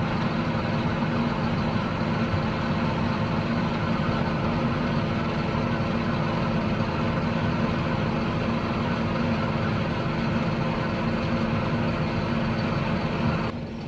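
Heavy diesel engine of harvest machinery running steadily with an even drone. The sound drops away abruptly just before the end.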